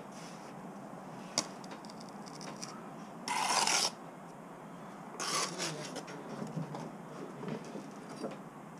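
Hand bricklaying work: a sharp tap about a second and a half in, then two short, loud scraping rasps, the first around three seconds in and the second about two seconds later.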